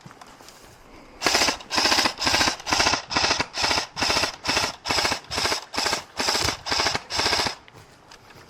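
Airsoft rifle firing about fifteen short full-auto bursts in quick succession, two or three bursts a second, starting about a second in and stopping about a second before the end.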